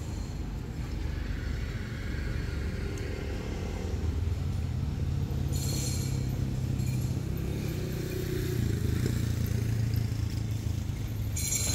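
A motor engine running steadily: a low hum whose pitch steps up a little about four seconds in, with short rustling noises around six seconds and near the end.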